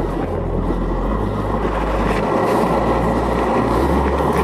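Longboard wheels rolling over paving slabs: a steady, coarse rumble as the board cruises.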